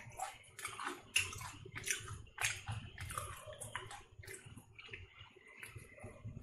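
Close-up mouth crunching and chewing of ridged Bingo potato chips: a dense run of sharp, irregular crunches that thins to lighter crackles after about four seconds.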